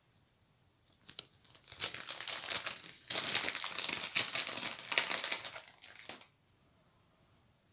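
Clear plastic packet of fly-tying material crinkling as it is handled. The rustling starts about a second in, grows louder about three seconds in, and stops about six seconds in.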